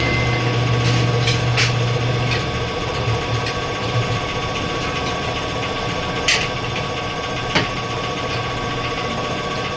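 A small machine motor running steadily, with a few sharp clicks and knocks; a low hum in it fades away over the first few seconds.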